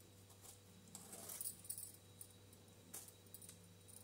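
Faint scraping strokes of a hand-held vegetable peeler taking the skin off a mango, a few separate strokes over a low steady hum.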